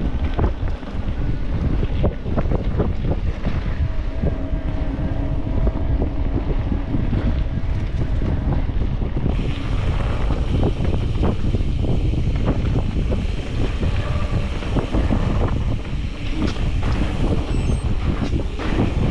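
Wind buffeting the camera microphone while riding a mountain bike on a trail, with the bike's rattles and knocks over rough ground.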